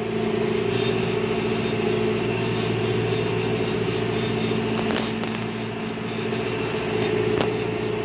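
John Deere 5100E tractor's diesel engine running at a steady speed, heard from inside the cab.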